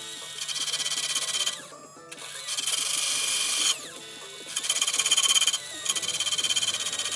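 Power sanding tool with a coarse 36-grit abrasive grinding a knife part in repeated passes, each about a second and a half of harsh grinding, the motor still running quietly between them.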